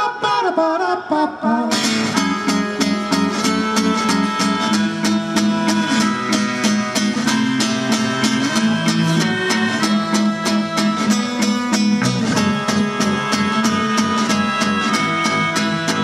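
Live band song: a sung line over light backing, then about two seconds in the full band comes in, electric bass and strummed acoustic guitar keeping a steady beat under a melody.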